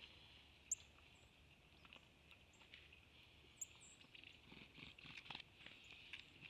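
Faint trail-camera ambience with a steady high hiss, scattered short high chirps and two sharp clicks. Soft pattering scuffs and taps come from white-tailed deer stepping and feeding at a feeder trough, busiest in the second half.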